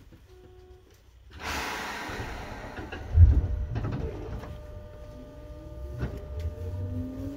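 Seibu 2000 series electric train car pulling away from a stop: a sudden hiss of air about a second and a half in, a loud clunk about three seconds in, then the motor whine rising steadily in pitch as the train starts to accelerate.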